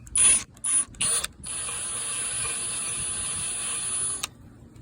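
Power drill on the broken stud, pulsed in a few short bursts with a high motor whine, then run steadily for about three seconds before stopping suddenly, as the stud starts to turn.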